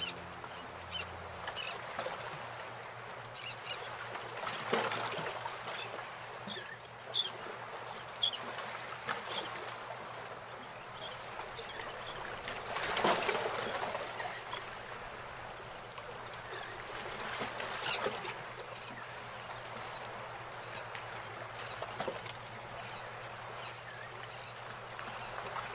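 Birds calling over a steady background hiss: short, repeated calls come in a few clusters, the loudest run of them about two-thirds of the way through.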